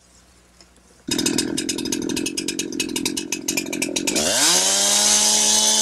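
Two-stroke chainsaw comes in suddenly about a second in, idling with a rapid patter. About four seconds in it revs up to full throttle, its pitch rising and then holding steady, as the saw is brought up to speed to start a plunge (bore) cut into the tree.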